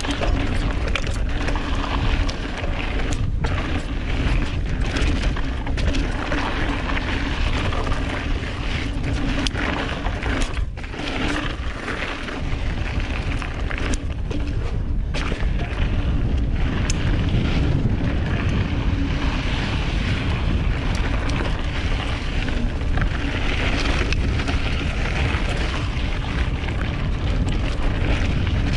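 Wind buffeting the microphone of a camera carried on a hardtail mountain bike being ridden, a steady loud rush with strong low rumble and no break.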